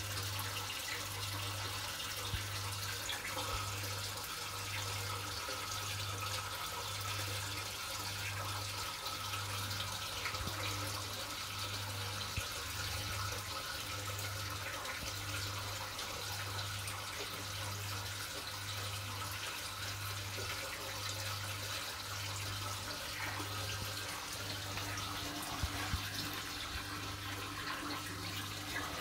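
Steady running and bubbling of aquarium water circulation from the tank's pump and filter, with a low hum that swells and fades about once a second.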